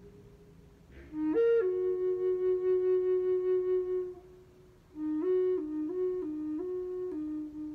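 E-flat end-blown wooden flute of Atlantic white cedar playing a slow melody. After a quick breath about a second in, it rises briefly and falls to a long held note. After a pause, it steps back and forth between two notes and settles on a long low note near the end.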